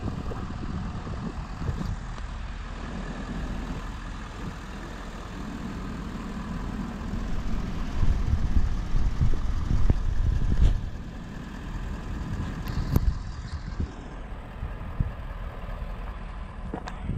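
Steady low vehicle drone, with wind buffeting the microphone in uneven gusts that grow louder for a few seconds in the middle.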